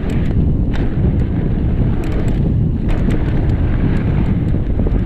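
Wind rushing over the camera microphone of a mountain bike riding fast downhill on a dirt trail, with a loud, steady low rumble and scattered short clicks and rattles.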